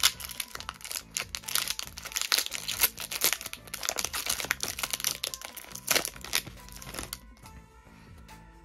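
Foil Pokémon booster pack wrapper crinkling as it is torn open and the cards are pulled out of it. The crinkling stops about seven seconds in, leaving background music.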